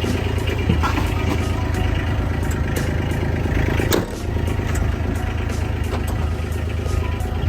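A vehicle engine running steadily, with a few light clicks and a single knock about four seconds in.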